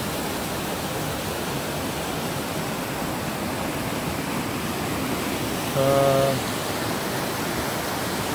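Mountain creek rushing over boulders: a steady rush of water. About six seconds in, a brief steady humming tone sounds over it for about half a second.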